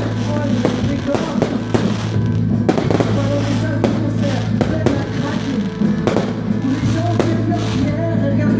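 Fireworks going off in an irregular series of sharp bangs and crackles, over music playing.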